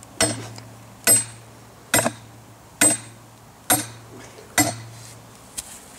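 Steel soil-sampling probe being driven into the ground by metal-on-metal hammer blows: six sharp strikes a little under a second apart, each followed by brief ringing from the pipe, and a lighter knock near the end.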